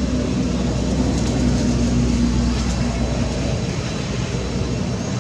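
A steady low, engine-like drone with a faint hum, a little louder in the first few seconds and easing slightly near the end.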